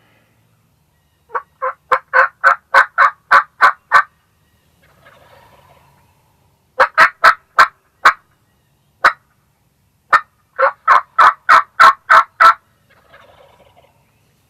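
Hen turkey yelps in three loud runs of evenly spaced notes, about three a second, with faint distant gobbling from toms answering between the runs.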